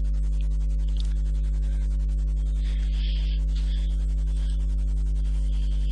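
Steady low electrical hum with a stack of even overtones, a constant mains-type buzz in the recording.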